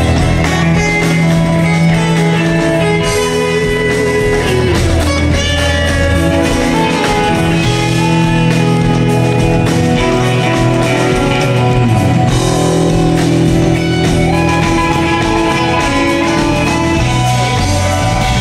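Live rock band music with guitar prominent over bass and drums.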